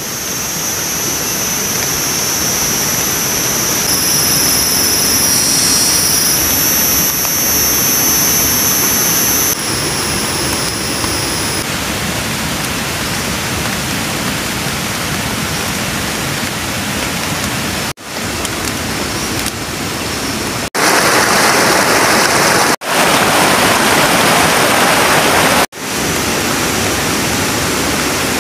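Steady rain falling on forest foliage, a dense, even hiss. During roughly the first dozen seconds a high, steady shrill sits over it; later the sound cuts off abruptly several times and comes back louder.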